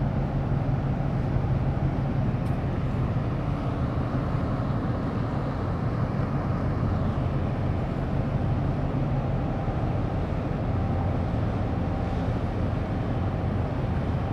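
Steady low drone of a large container ship's engines as the ship passes close by, with an even rushing noise over it.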